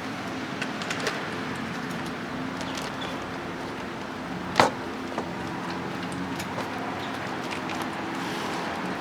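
Scattered light clicks and one sharp knock about halfway through, over a steady low hum.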